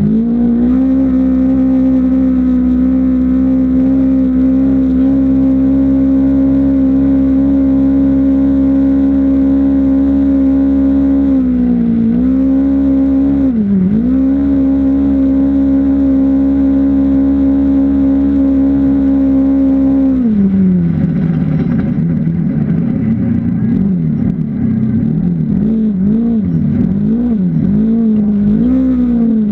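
Off-road vehicle engine running at high, steady revs, easing off briefly twice near the middle. After about twenty seconds the revs drop, then rise and fall unevenly.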